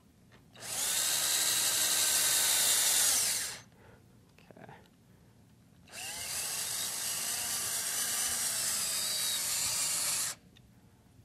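Cordless drill driving hex-head wood screws into a speaker baffle to mount the drivers: the motor runs twice, for about three seconds and then about four seconds, with a short pause between.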